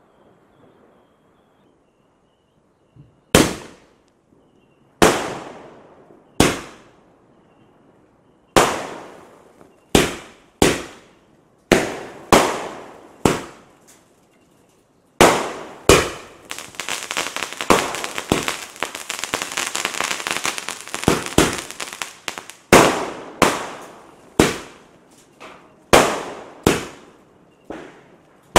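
Century Fireworks 'Sweet Secrets' 30-shot multi-colour sky shot cake firing, starting about three seconds in. Its aerial shells go off as a string of sharp bangs, each trailing off, at irregular gaps of roughly a second. Midway comes a dense run of crackling lasting several seconds.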